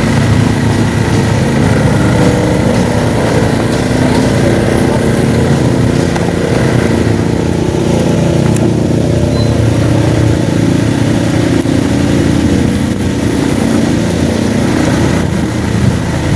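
A vehicle engine running steadily at cruising speed, with road and wind noise.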